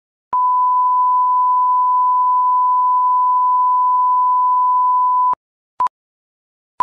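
Color-bar test tone: one steady pure beep held for about five seconds, then short countdown-leader beeps of the same pitch about once a second.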